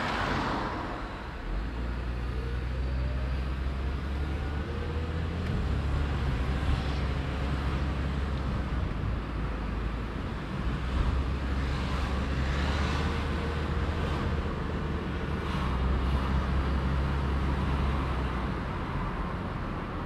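Car driving slowly in town traffic: a steady low engine and road rumble, with the hiss of other traffic swelling now and then.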